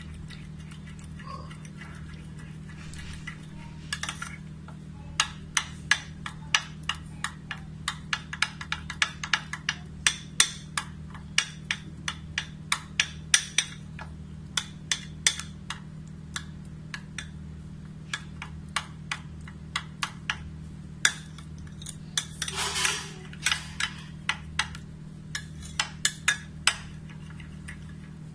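A metal spoon stirring a flour-and-water slurry in a glass bowl, clinking against the glass in quick, irregular taps, with a brief rougher rasp a little past three-quarters of the way through. A steady low hum runs underneath.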